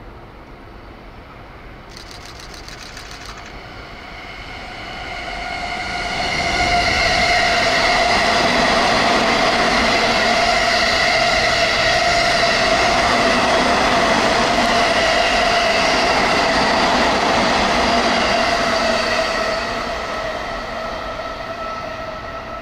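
JR East E217 series electric train passing through the station at speed without stopping. Its noise builds from about four seconds in to a loud, steady run-by: wheels on rail with steady ringing tones over the rumble. It fades as the rear cars go past near the end.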